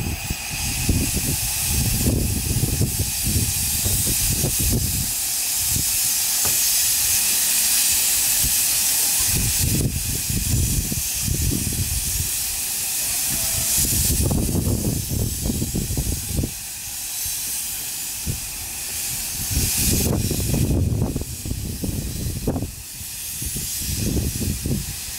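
Miniature 15-inch-gauge steam locomotive pulling away from a standstill: loud hissing steam from its open cylinder drain cocks over a run of low exhaust chuffs. The hiss eases about halfway through and comes back briefly later while the chuffs go on.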